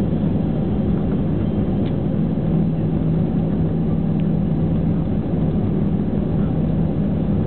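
Airliner cabin noise during the landing rollout or taxi: a steady, loud drone of engines and rolling with a strong low hum.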